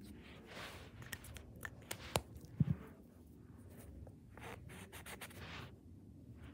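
Cotton-swab tip inked with marker rubbing across paper in a few short strokes, with some light clicks and a soft thump about two and a half seconds in.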